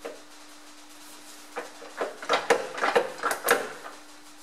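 A quick run of sharp metallic clicks and clunks from a metal lathe's speed-change gear levers being shifted to the slowest speed and the chuck being handled to let the gears mesh, over a steady faint hum.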